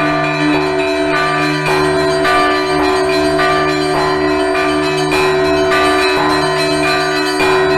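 Russian Orthodox church bell ringing (zvon): several bells struck together in quick, overlapping strokes over the lasting hum of a deeper bell.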